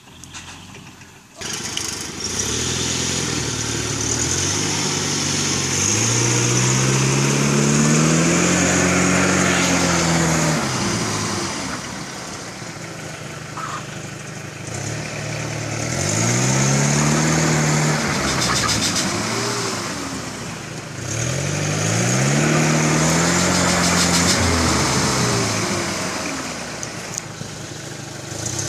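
An SUV engine revving hard under load in three long surges, the pitch climbing and then falling each time, as a vehicle stuck in mud is pulled out on a tow rope.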